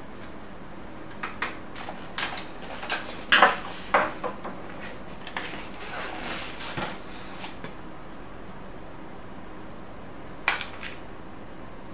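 Clatter of hard plastic and metal printer parts and a screwdriver being handled inside a laser printer's open chassis: a run of scattered clicks and knocks through the first half, loudest a few seconds in, and one more sharp knock near the end.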